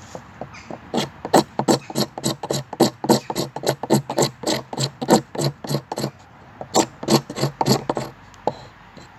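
Hand saw cutting through a log or branch in quick back-and-forth rasping strokes, about three a second. The sawing pauses briefly about six seconds in, then a second short run of strokes follows.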